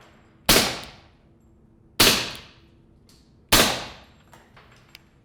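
Three suppressed shots from an HK45 pistol fitted with an SWR Octane 45 HD suppressor, firing subsonic 230-grain .45 ACP ammunition, about a second and a half apart. Each is a sharp report that dies away over about half a second.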